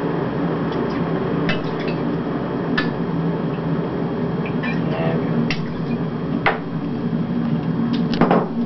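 Electric kettle heating up with a steady rumbling hiss, while a spirit measure and a glass clink sharply several times as whiskey is poured.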